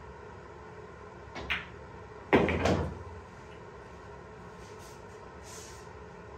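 Pool shot: a light click of the cue tip striking the cue ball, then just under a second later a louder, sharp clack of billiard balls colliding with a brief rattle. A few faint ticks follow as balls roll.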